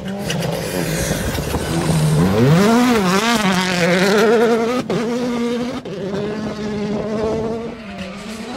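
Hyundai i20 Coupe WRC rally car's turbocharged four-cylinder engine at full throttle through a gravel corner, passing close, its pitch wavering quickly up and down and loudest in the middle. There are two brief drops about a second apart as it shifts gear.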